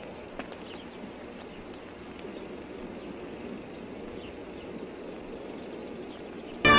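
Low, steady background noise with a few faint ticks, then music starts abruptly right at the end.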